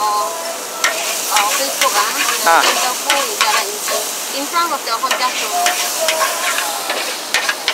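Char kuey teow frying in a wok: a steady sizzle with repeated scrapes and knocks of the metal spatula against the wok as the noodles are stirred.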